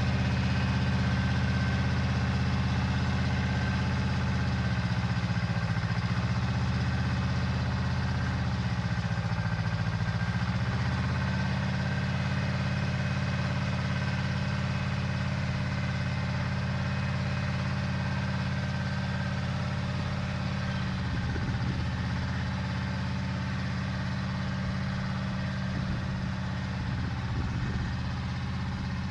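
Pasquali 425 compact tractor's 30 hp engine running steadily while pulling a plough through soil; its note sags briefly twice in the first half under the load, and the sound slowly fades as the tractor moves away.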